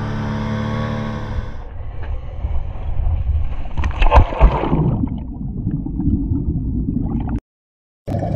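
Background music with sustained notes gives way to the rush of water from a moving dive boat, then a loud splash about four seconds in as a diver drops into the sea, followed by a muffled underwater rumble and bubbling. The sound cuts out briefly near the end before music returns.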